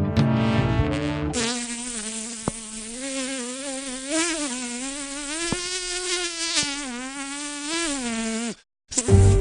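A sustained, buzzing insect-like drone with a rich, reedy tone whose pitch wavers slowly up and down, taking over from bowed string music about a second in and cutting off abruptly near the end; string music comes back just after.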